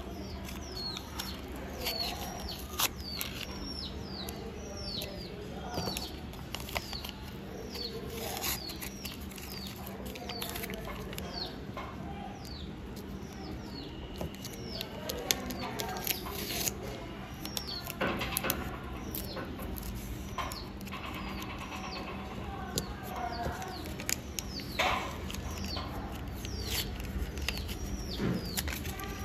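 Paper rustling and sliding as cut paper pieces are handled and pressed down on a paper base, with a few sharper crinkles. Throughout, a bird chirps over and over in short falling chirps, one or two a second.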